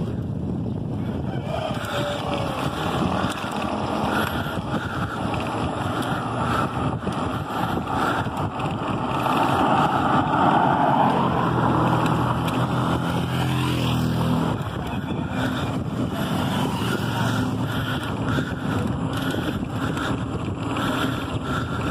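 Wind rushing over the microphone of a camera on a moving bicycle. A car passes close by, growing louder about ten seconds in, with its engine note heard briefly as it goes by.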